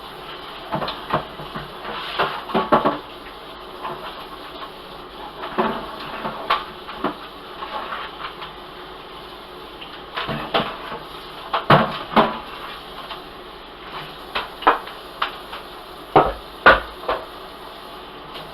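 Kitchen clatter: dishes, pots and utensils being handled, giving irregular knocks and clinks in small clusters over a steady background hiss.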